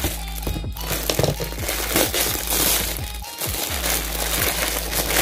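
Plastic wrap and bubble wrap crinkling and rustling as a bag is pulled out of its packaging, over background music.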